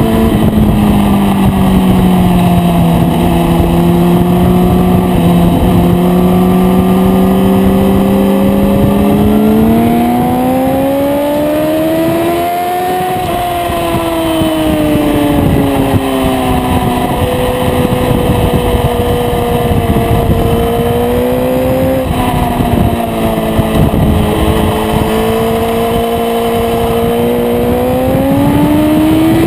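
Aprilia RSV4's V4 engine pulling hard on track, heard from on the bike. Its pitch sinks and climbs with the throttle, rising twice, about ten seconds in and again near the end, over a steady rush of wind noise.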